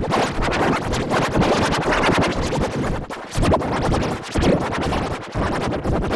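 Heavily distorted remix music, chopped into rapid stutters and scratch-like repeats, with brief sudden drop-outs about three, four and five seconds in.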